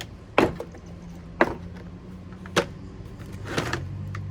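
Three sharp plastic snaps about a second apart, then a brief rustle, over a low steady hum: a Hyper Tough socket set's plastic case being unlatched and opened.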